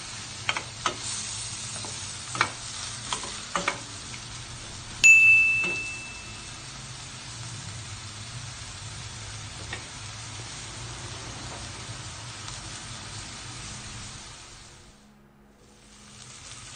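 Tomatoes, onion, garlic and ginger sizzling as they sauté in a stainless steel pot, with a wooden spatula knocking and scraping against the pot several times in the first few seconds. About five seconds in, a single bright bell-like ding rings out and fades. The sizzling drops away briefly near the end.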